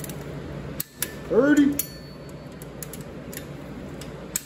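Torque wrench on a 14 mm socket pulling a Honda D16 cylinder head bolt up to 30 ft-lb: one short squeaking creak about a second in as the bolt is drawn tight, with a few light metallic clicks of the wrench and socket.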